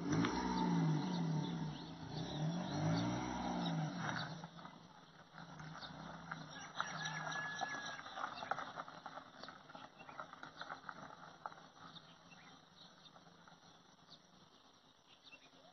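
A Maruti Suzuki Alto hatchback's small three-cylinder petrol engine running as the car pulls away over grass, with its pitch rising and falling for about four seconds, then fading into a faint outdoor background with scattered ticks.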